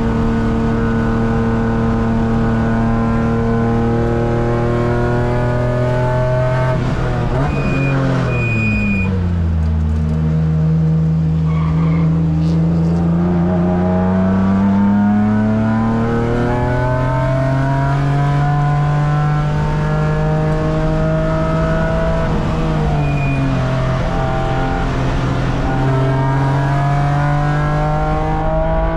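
BMW track car's engine heard from inside the cabin during a hot lap: held at high revs, then the pitch falls sharply about eight seconds in and climbs steadily again, falling once more a little past two-thirds of the way and again near the end. Short tyre squeals come with the two main drops in revs.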